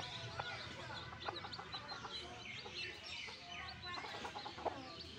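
Newly hatched chicks peeping: a steady stream of short, high chirps, with a hen's low clucks mixed in.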